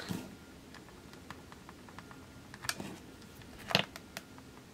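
A few faint clicks and handling sounds from a Minolta Talker 35mm compact film camera being fingered on a tabletop. The sharpest click comes a little under four seconds in, as the shutter button is pressed.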